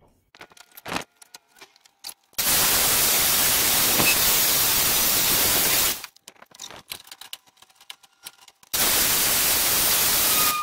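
Grinder grinding down the steel tang of a sword blade: two bursts of harsh, even hiss, each several seconds long, starting and stopping abruptly. A few clicks and knocks come before the first burst.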